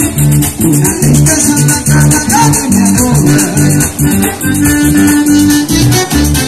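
Live Panamanian música típica played loud for dancing: accordion over bass and drums, with a busy, even high percussion pattern keeping the beat.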